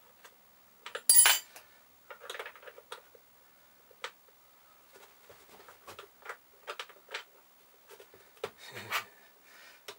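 Metal retaining clips and a plastic air filter housing being handled on a stainless steel bench and steel block: one sharp metallic clink with a brief ring about a second in, then scattered light clicks and knocks as the clips are worked into the housing.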